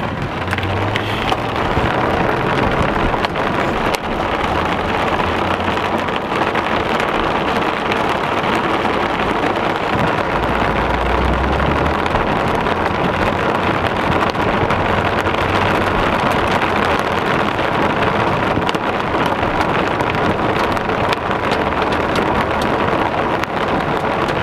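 Heavy rain falling on a car's roof and windshield, heard from inside the moving car, with the car running on the wet road underneath. A low rumble swells briefly about ten seconds in.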